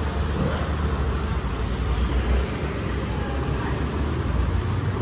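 Street traffic: a vehicle's low engine rumble passing close, strongest in the first half, over steady street noise and faint chatter.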